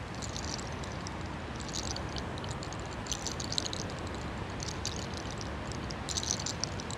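Hair cracking ('sacar los soles'): locks of hair rolled between the fingers and pulled, giving short bursts of crisp crackling every second or two over a steady low background rumble.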